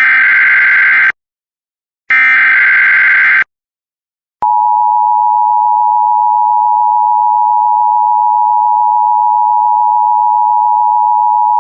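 Emergency Alert System SAME header: the last two of three harsh, buzzy digital data bursts, each a little over a second long with a second of silence between. After them the long, steady alert tone begins about four seconds in and holds unbroken, signalling a Tornado Watch broadcast.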